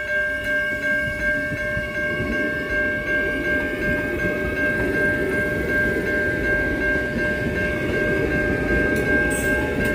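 Adelaide Metro 4000-class electric multiple unit pulling out of the station: a rumble of wheels on rail builds from about two seconds in and stays, under steady high electrical tones that run throughout.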